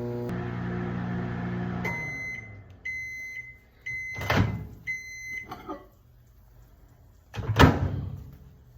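Microwave oven running with a steady hum that stops about two seconds in, followed by its high beeps several times signalling the end of the cooking cycle. Then two sharp knocks, the second louder near the end.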